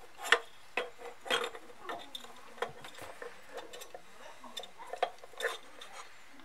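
Irregular clicks and knocks as the housing of an Autometer 5-inch tachometer is handled and fitted together by hand around its circuit board.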